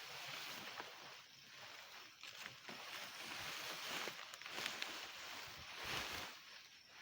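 Dry maize stalks rustling and crackling as they are handled and stacked, in waves of noise that swell and fade every second or two.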